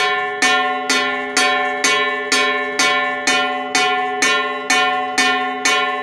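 Homemade automatic school bell: a mechanically driven hammer arm striking a round metal disc bell about twice a second. Each stroke rings on into the next with a temple-bell tone.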